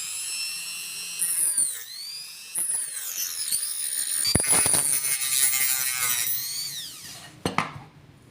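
Angle grinder running with a high whine. Its pitch dips briefly about two seconds in, it grows louder soon after, and it winds down in pitch near the end, followed by a couple of sharp clicks.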